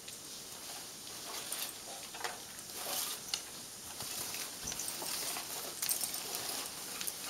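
Plastic bag crinkling and rustling as a dog noses and digs into it, in irregular crackles throughout.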